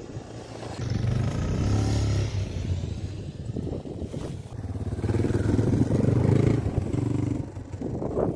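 Dirt bike engine revving as the bike rides up the gravel trail and past close by, swelling loud twice with a dip between. There is a sharp knock near the end.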